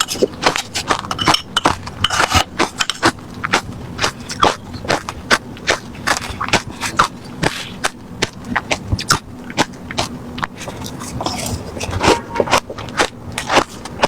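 Close-miked chewing of refrozen crushed ice: rapid, crisp crunches, several a second, as the ice is bitten and ground between the teeth.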